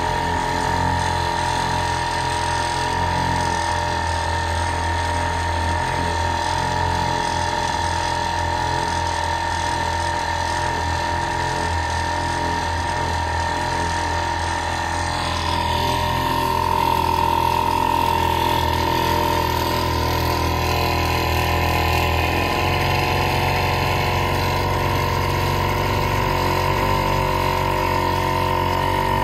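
1948 Evinrude Sportsman 1.5 hp two-stroke outboard motor running steadily, pushing a small boat along. It grows a little louder about halfway through.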